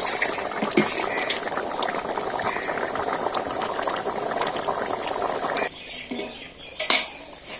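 Chicken curry bubbling and sizzling in a pan, with scattered small clicks. It cuts off abruptly about six seconds in, and a single sharp click follows a second later.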